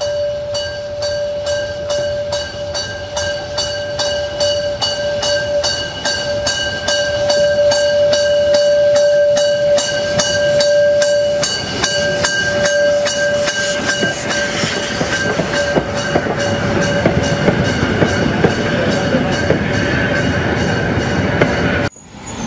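Class 52 steam locomotive passing, its steam whistle held in one long steady blast that breaks off briefly about twelve seconds in and then sounds again before fading. Under it and after it come steam hiss and the rhythmic clatter of the locomotive and carriages rolling over the rail joints.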